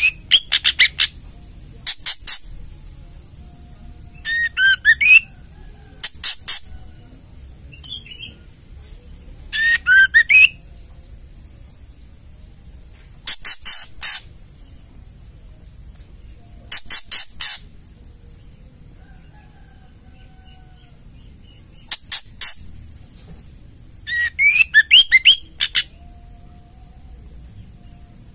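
White-rumped shama giving its harsh rattling chatter (ketrekan) in short bursts every few seconds, some bursts mixed with short whistled notes.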